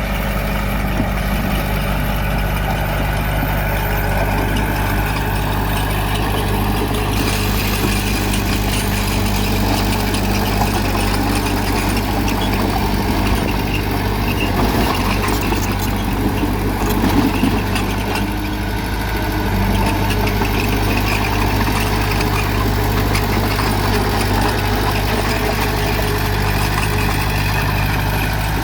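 Heavy earthmoving machine's diesel engine running steadily at a constant low pitch, with a stretch of louder clatter in the middle.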